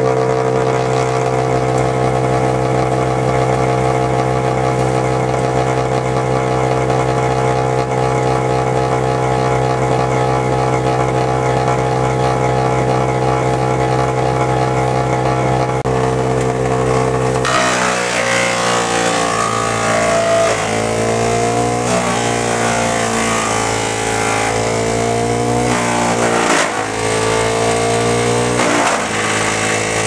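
Ohashi GS400D wood chipper's engine running steadily. About halfway through, a rougher, noisier sound joins in and the engine note dips several times.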